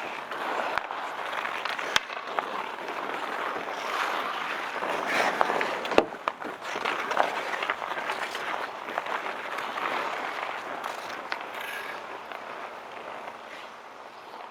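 Outdoor ice hockey game ambience: a steady wash of play noise broken by sharp clacks of sticks or puck every few seconds, the loudest about six seconds in, fading out near the end.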